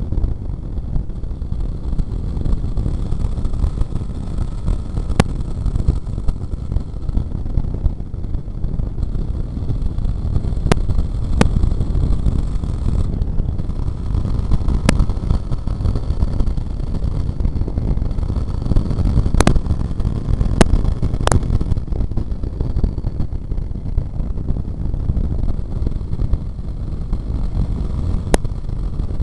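Sport motorcycle cruising at speed: a steady low rumble of engine and wind on a bike-mounted camera, with a few sharp clicks here and there.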